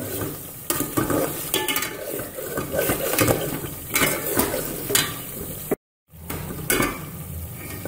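A metal spatula stirs and scrapes through a thick, frying liver-and-onion masala in an aluminium pot. The scrapes and clinks come about once a second over a steady sizzle. The sound cuts out completely for a moment about six seconds in.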